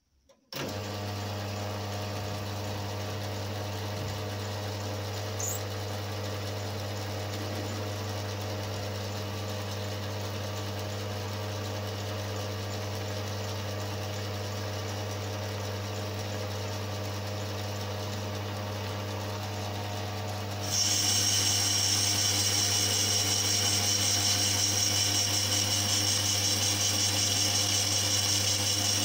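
Metal lathe starting up about half a second in and running steadily with a low motor hum. About two-thirds of the way through, the carbide tool bites into the brass-coloured blank, adding a louder high-pitched cutting hiss as chips come off.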